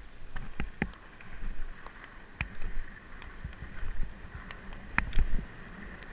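Longboard rolling fast downhill on asphalt: a steady wheel hiss with wind rumbling on the microphone, and scattered sharp knocks and clicks from the board, the loudest about two and a half and five seconds in.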